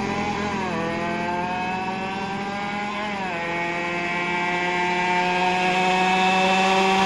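Yamaha RX-King 135 cc two-stroke single with an underbelly expansion-chamber exhaust, accelerating through the gears. Its note climbs, drops sharply at an upshift about a second in and again about three seconds in, then climbs again as it grows louder.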